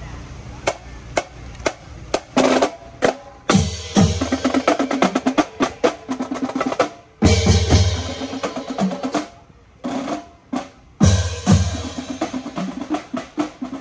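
Marching band drumline playing a cadence on snare drums, tenor drums and bass drums. It starts with a few sharp clicks, the full line with bass drums comes in about three seconds in, and it breaks off briefly near ten seconds before playing on.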